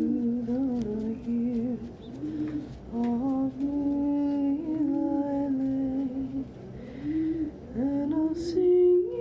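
A woman singing a lullaby melody without clear words, in long held notes that step and glide between pitches, with pigeons cooing.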